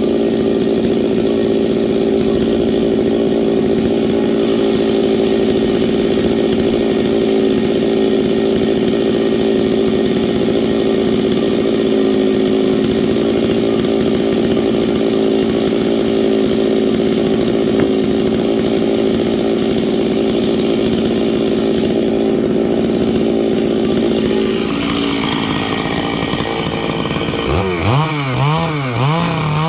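Stihl 660 chainsaw with a 36-inch bar running steadily at high revs, rip-cutting lengthwise through dry larch. Near the end the engine note drops, then rises and falls in several quick revs.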